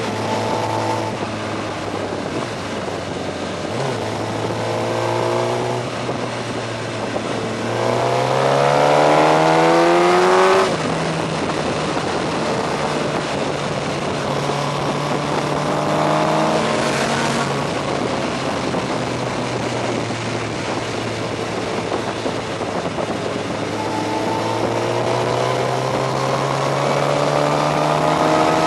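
Suzuki GSX-R 1000 inline-four motorcycle engine heard on board while riding, over wind rush. It runs steadily, then climbs in pitch under acceleration about eight seconds in and cuts off sharply about two and a half seconds later, and climbs again near the end.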